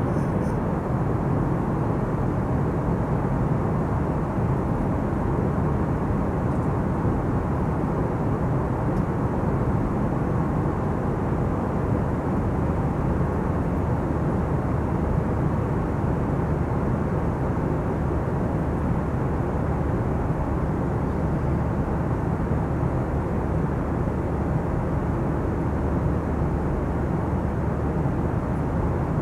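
Steady cabin noise of an Airbus A321 in cruise: an even, low rush of airflow and jet engines heard through the fuselage, unchanging in level throughout.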